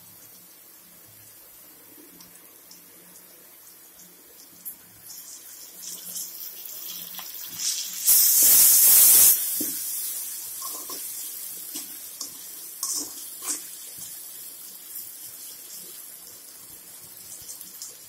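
Shallots, garlic and curry leaves sizzling in hot oil in a metal kadai, with a few clinks of a slotted spoon against the pan. About eight seconds in, a loud burst of sizzling as chopped tomatoes go into the oil, easing off over the following seconds into a steady sizzle as they are stirred.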